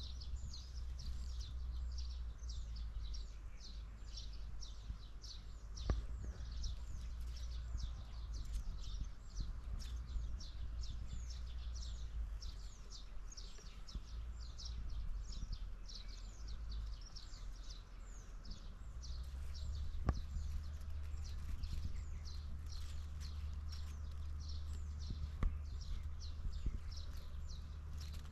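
Birds chirping in a continuous run of short, high, downward-sweeping notes, several a second, over a low rumble. A few faint knocks come through now and then.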